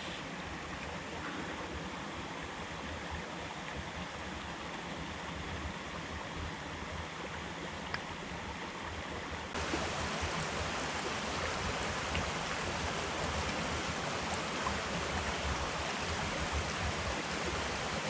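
A steady rushing noise with no distinct events, stepping up in level about ten seconds in.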